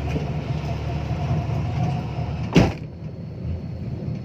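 Dump truck engine running steadily, with one sharp, loud knock about two and a half seconds in.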